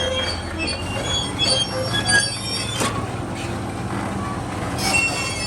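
Heavy equipment running: a low, steady engine drone under many short, high-pitched metallic squeals, with a sharp click about three seconds in.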